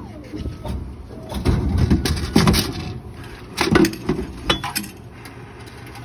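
Coca-Cola vending machine dispensing a 500 mL bottle: clattering knocks as the bottle is delivered to the port, about a second and a half in. Near four seconds the bottle is pulled out through the delivery door, with more knocks and a sharp click.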